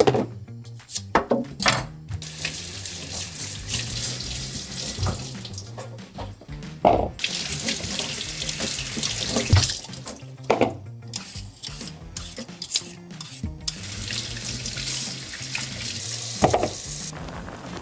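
Kitchen tap running water into a stainless steel sink in several long stretches as vegetables are rinsed under it. Short knocks and scrapes fall in the gaps between.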